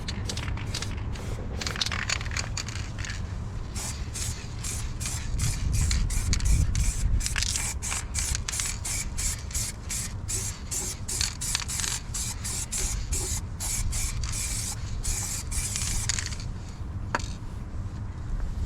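Rapid, repeated short hissing strokes, about two to three a second, from work on a rusty steel wheel, over a steady low rumble.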